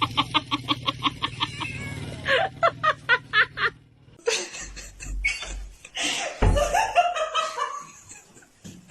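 A person laughing in quick repeated bursts, two runs of rapid 'ha-ha-ha' pulses in the first few seconds, followed by more broken laughter and a few knocks, over a low steady hum.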